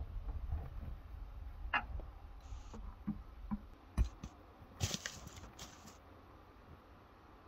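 Light handling noises from a plastic bucket being grabbed and moved: scattered small clicks, a dull knock about four seconds in and a short rattling clatter just after.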